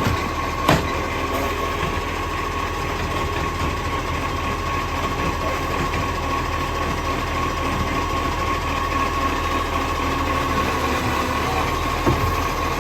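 Green-waste garbage truck's diesel engine idling steadily, with a constant high whine over the low rumble; the truck has an exhaust leak. A sharp click sounds just after the start and again near the end.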